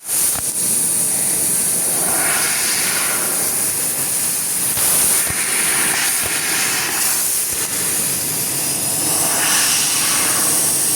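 Laser sheet-metal cutting machine running with a steady, loud hiss that swells a few times.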